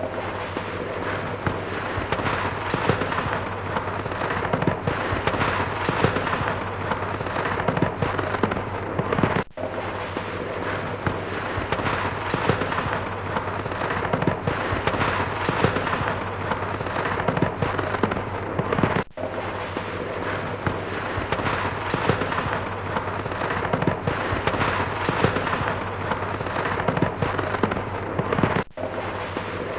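Dense, continuous crackling and popping, with a brief dip in level about every nine and a half seconds.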